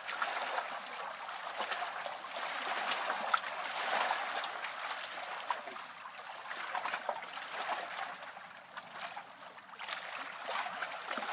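Water lapping and trickling, a continuous splashy wash with small scattered drips and splashes, swelling and easing.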